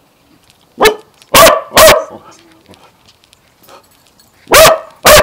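Small shaggy dog barking loudly close to the microphone: three short barks in the first two seconds, then two more near the end.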